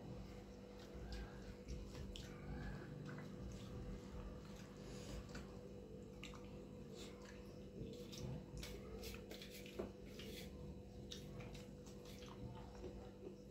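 Soft, wet squishing and clicking of fingers mixing rice and egg curry on a steel plate, with chewing and mouth smacks, over a faint steady hum.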